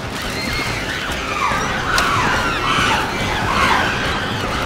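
Several chimpanzees screaming at once during a fight: many overlapping shrieks rising and falling in pitch, growing louder about a second in.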